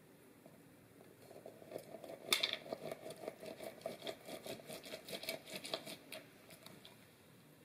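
A lemon half being twisted and pressed against a plastic reamer juicer: a run of rubbing, grinding strokes, about three or four a second. They start about a second in, are loudest just after two seconds, and fade out near the end.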